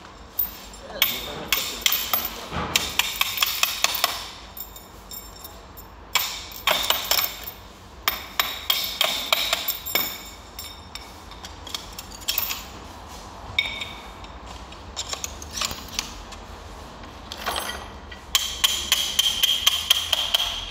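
Steel gear-assembly parts of a 950B wheel loader knocking, tapping and clinking against each other in irregular clusters of sharp hits, some with a brief metallic ring, as they are handled and fitted.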